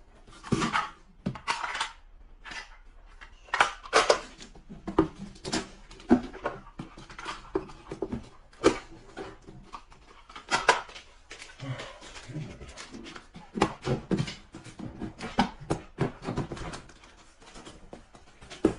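Irregular knocks, scrapes and rustles of small cardboard boxes and packing tape being handled.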